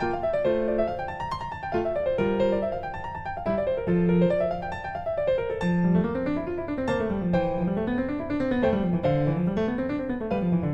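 Background piano music: flowing arpeggios that rise and fall over and over, with a bass line that starts moving in matching runs about halfway through.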